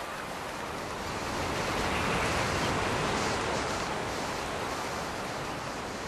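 Rushing noise of a large flock of ducks taking off from the water, wings beating and water splashing, swelling about two seconds in and then easing off.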